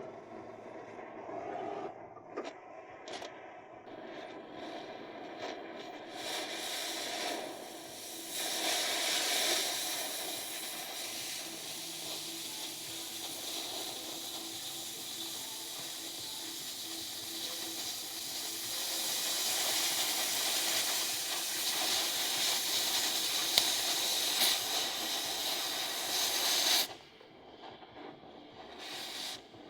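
Cutting torch hissing steadily as it cuts through steel. The hiss starts about six seconds in and cuts off suddenly near the end, with a few light clicks before it starts.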